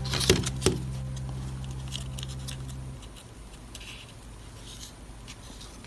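Light clicks and taps of small basswood model-kit parts being handled and pressed into place, with two sharper clicks in the first second and fainter ticks after. A low steady hum stops about three seconds in.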